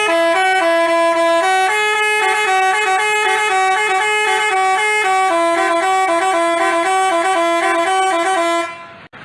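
Telolet basuri musical bus horn playing a quick melody of buzzy, stepping horn notes, then cutting off near the end.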